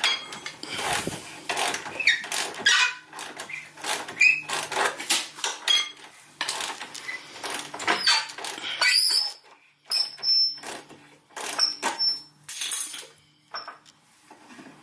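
Repeated metallic clicks and knocks with brief high squeaks as a rusty rear shock absorber mounting bolt on a Jeep Wrangler JK is wiggled and worked out of its mount.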